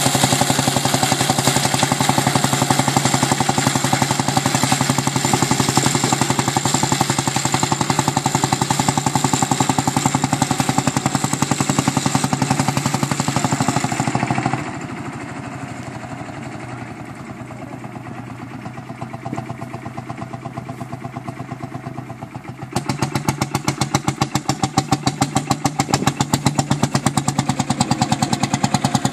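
1952 Field Marshall Series 3A tractor's single-cylinder two-stroke diesel engine running under load, pulling a ground-drive reaper binder, with a rapid, even exhaust beat. It turns fainter about halfway through and grows louder again for the last few seconds.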